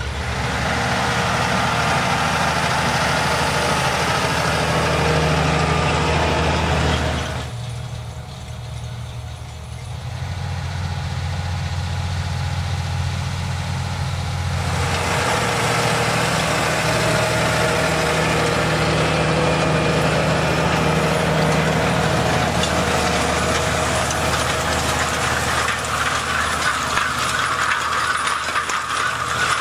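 John Deere 8345R tractor working under load, its engine running steadily while it pulls a spring-tine seedbed cultivator whose tines rattle and clatter through dry soil. The sound drops away for several seconds about a quarter of the way in, then builds again; near the end the rattle of the tines is loudest.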